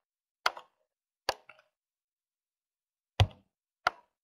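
Four sharp computer-mouse clicks, irregularly spaced, with dead silence between them; the third click is the loudest and carries a low thud.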